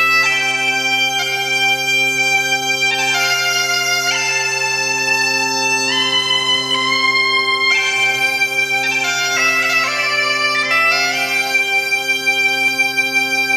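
Galician bagpipe (gaita galega) played solo: a steady low drone sounding under the chanter's melody, which steps from note to note, with a quick run of ornamented notes about ten seconds in.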